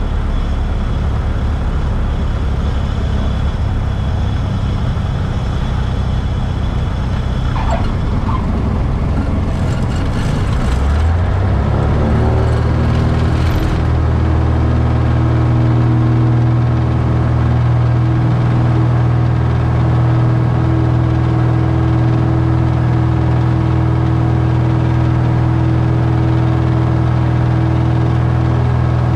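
Cessna 172 piston engine and propeller heard from inside the cockpit, rumbling at low power as the plane rolls on the runway. About 11 seconds in, the engine rises in pitch and settles into a steady, stronger drone as full power is added for the takeoff roll of a touch-and-go.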